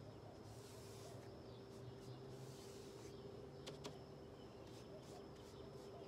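Faint, near-silent swishing of a synthetic-bristle chip brush drawn in long strokes across the side of a mini refrigerator, over a steady low hum. Two faint ticks come about two-thirds of the way through.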